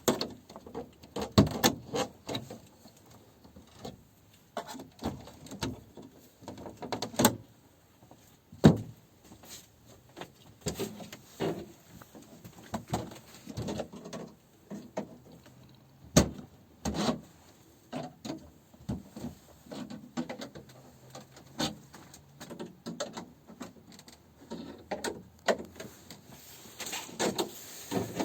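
Irregular knocks, clicks and rustles of things being handled and set down, with no steady machine sound.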